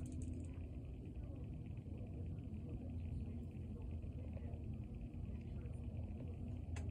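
Steady low background rumble with a faint steady hum, with no distinct events.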